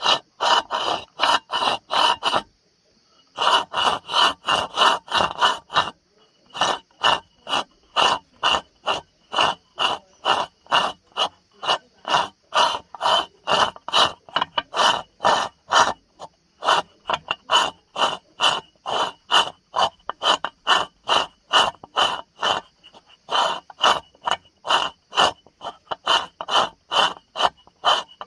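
Old coffee grinder grinding in a fast, even rhythm of rasping strokes, about three to four a second, stopping briefly a few times before carrying on.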